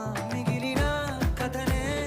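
Background music with a sung melody and a steady drum beat coming in under it less than a second in.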